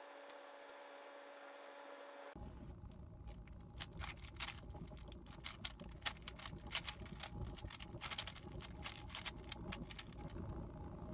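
GAN 15 speed cube being turned quickly: rapid, irregular plastic clicking of the layers, faint and uneven in strength. The clicking starts about two seconds in, after a brief faint steady hum.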